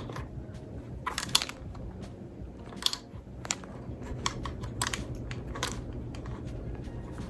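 Irregular plastic clicks and light knocks as ring-light parts are handled and fitted by hand, coming in small clusters of several clicks at a time.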